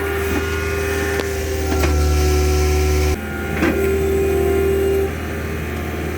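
Engine of a post-hole auger running hard as the auger grinds into a buried sandstone rock, with a few sharp knocks from the bit on the stone. The revs are high until about three seconds in, then drop suddenly to a lower steady run.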